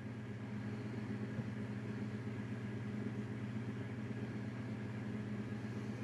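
Steady low hum of a car engine idling, heard from inside the cabin.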